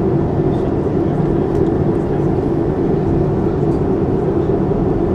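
Steady engine and airflow noise inside the cabin of a Boeing 737-300, heard from a window seat beside the wing, a loud even drone with no rise or fall in pitch.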